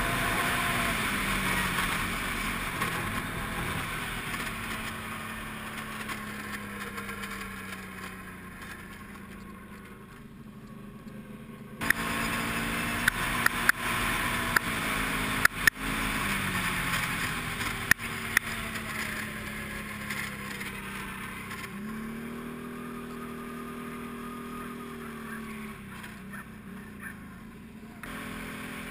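Can-Am Renegade 500 ATV's single-cylinder engine running, its pitch sinking and rising as it is revved, with a rattling noise whose cause the owner does not know. A few sharp knocks come between about twelve and eighteen seconds in.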